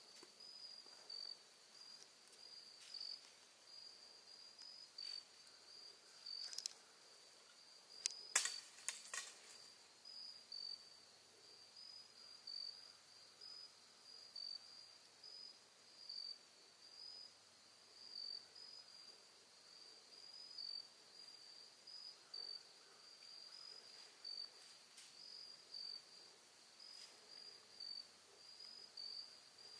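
Crickets chirping steadily in a high, evenly pulsing rhythm. About eight seconds in, a quick cluster of a few sharp clicks stands out above them.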